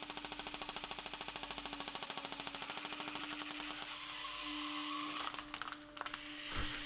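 Electric airsoft M4 rifle with a transparent body firing on full auto: its gearbox cycles as a rapid, even rattle over a steady hum while a hydraulic press bears down on it. About four seconds in the rattle gives way, and a few sharp cracks follow as the plastic receiver is crushed.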